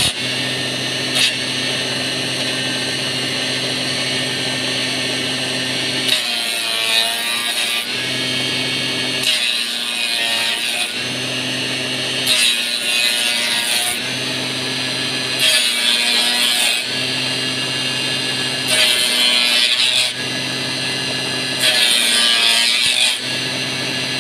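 Electric motor of a homemade wood-turning (bubut) machine running steadily, as wooden sticks for flag handles are fed one after another through its cutter. About every three seconds the hum gives way to a rough cutting noise lasting a second or two, six times in all, each one a stick being shaped.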